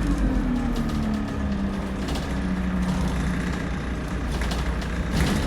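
Bus engine heard from inside the bus, its note dropping over the first couple of seconds and then holding steady, with the body rattling and knocking, most sharply near the end.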